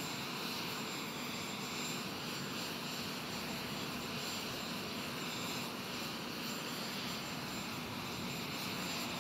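Steady jet aircraft noise on an airfield ramp: an even, unchanging rush with a low hum underneath.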